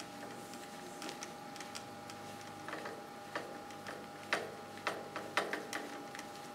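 Light clicks and rubbing of a plastic wing nut being spun by hand off the threaded stud that holds an air filter element on a small engine, sparse at first and coming quicker and louder in the second half. A faint steady hum runs underneath.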